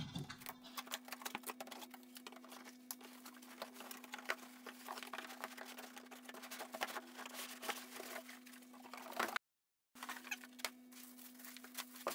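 Cardboard box being opened and its contents handled: a run of small scrapes, taps and rustles of cardboard flaps, pulp tray and plastic wrap, over a faint steady hum. The sound cuts out completely for about half a second roughly three-quarters of the way through.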